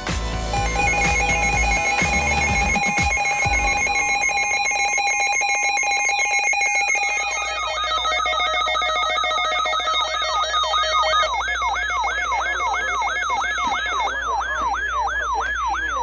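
Emergency Alert System alert tones for a child abduction (Amber) alert. Steady electronic attention tones with crackling over the first few seconds are joined, from about seven seconds in, by a warbling alert tone that sweeps down and up about twice a second.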